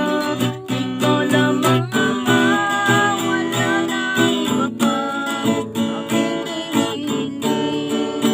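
Music: an acoustic guitar strummed in a regular rhythm, with a wavering melody line over it.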